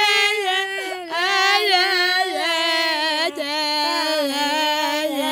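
A single high voice wailing in long, wavering held notes that glide between pitches, with short breaks between phrases.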